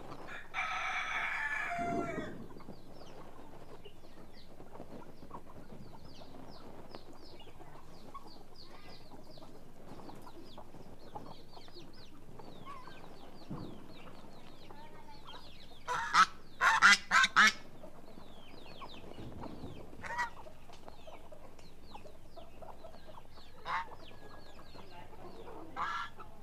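Farmyard chickens: a rooster crows once near the start, small chicks peep softly for much of the time, and a short cluster of loud calls comes about two-thirds through, with a few single calls after it.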